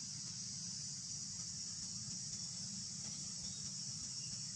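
Steady high-pitched drone of an insect chorus, unbroken, with a low steady hum underneath.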